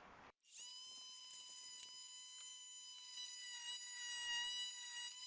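Oscillating multi-tool running and cutting away material, a steady high whine with faint ticks of the blade biting, starting about half a second in.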